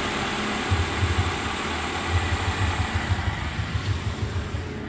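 2014 Suzuki APV's 1.6-litre four-cylinder petrol engine idling with a low, uneven throb, on a test run that the seller rates as tested good.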